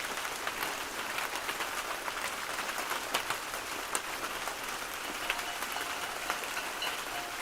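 Steady, dense patter of rain, made of countless small ticks with no break. Faint thin held tones come and go over the last two seconds.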